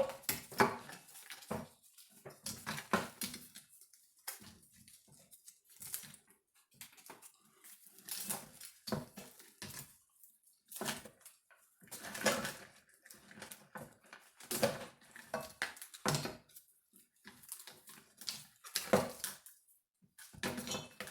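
Irregular rustling, clicking and clattering as a car engine wiring harness is handled and stripped: plastic connectors, relays and wire loom knocking together and wires being pulled, with short quiet gaps between bursts of handling.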